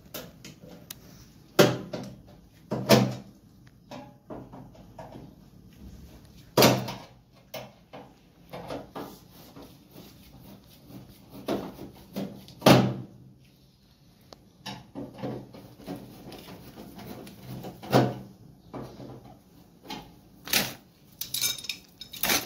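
Irregular sharp metallic knocks and clinks, a few seconds apart, from hand tools (pliers and a screwdriver) working nuts on a gas geyser's gas valve and thermostat block against its steel casing, with a quick run of small clicks near the end.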